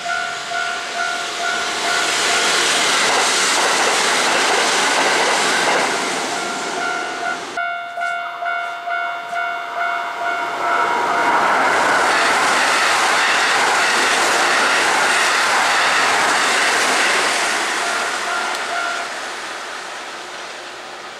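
Japanese level-crossing warning bell ringing in a steady ding, about two a second, while Kintetsu limited express electric trains pass on the track, their rolling noise loudest during two passes. Near the end the bell stops and the train noise fades away.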